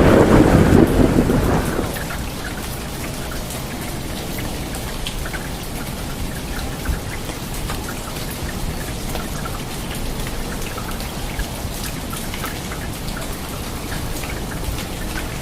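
A thunder rumble fading away over the first two seconds, then steady rain of a summer thunderstorm falling, with scattered drips and drops.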